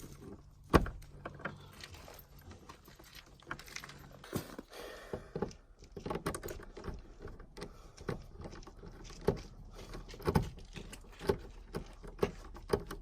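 Irregular clicks, taps and metallic clinks of hands and tools working a wire into an electrical terminal. The loudest knock comes about a second in.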